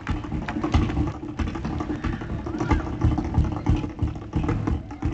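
Tap shoes striking the stage floor in quick, uneven clusters of sharp clicks, over background music.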